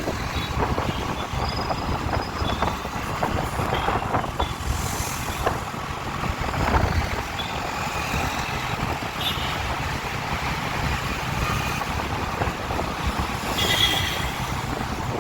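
Road traffic, with vehicle engines running steadily amid general street noise, and a short horn near the end.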